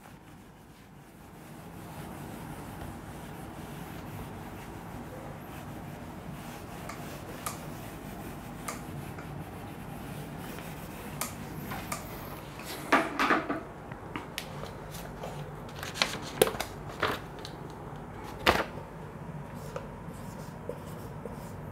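Whiteboard eraser rubbing over a whiteboard as it wipes it clean, a steady scrubbing, with a few sharp knocks against the board in the second half.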